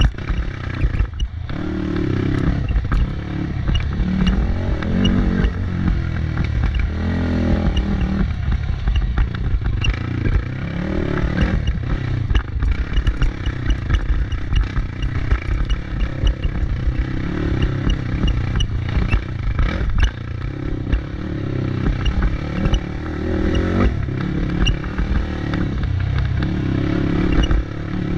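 Motorcycle engine running, its pitch rising and falling again and again as it revs, over a constant low rumble, with scattered clattering knocks.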